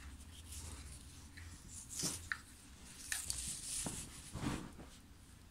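Faint handling sounds: a handful of small taps and rustles as a plastic headband and satin ribbon are moved about on a table, over a steady low hum.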